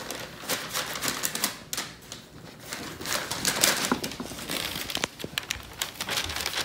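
Long-bladed kitchen knife cutting a cross into soft soda bread dough, the blade pressing through to the parchment-lined baking sheet: irregular clicks and scrapes with paper rustling.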